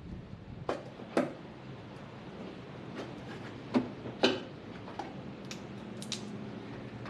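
Scattered sharp clicks and knocks of hand tools and hard plastic parts being handled, about seven in all, with the two loudest close together about four seconds in.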